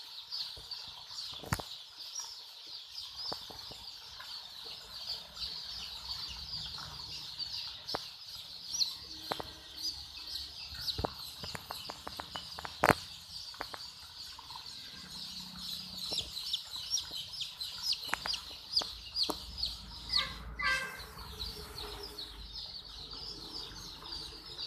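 A dense chorus of many poultry chicks peeping continuously, with scattered sharp taps and knocks among them.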